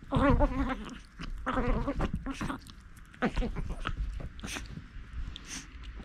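Chihuahua puppy giving two wavering, drawn-out play growls while mouthing a hand, then a few short sharp snuffling and scuffling sounds.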